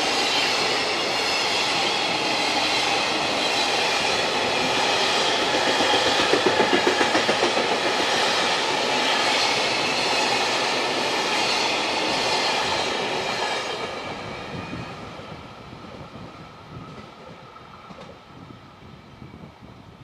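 Freight train passing close by, the wagons' wheels clattering steadily over the rail joints. The sound drops away about three-quarters of the way through as the end of the train goes past.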